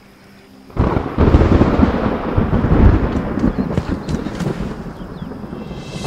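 A sudden loud crack of thunder about a second in, rolling on as a long rumble that slowly dies away.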